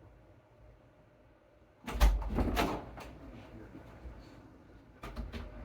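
A door or cupboard shutting with a heavy thud and clatter about two seconds in, then a few lighter clicks and knocks near the end.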